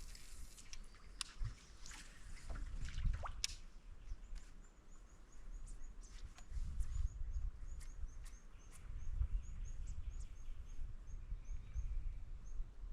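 Outdoor ambience: a low, uneven rumble of wind on the microphone and a few sharp clicks and rustles in the first few seconds. From about four seconds in, a high, short chirp repeats about twice a second.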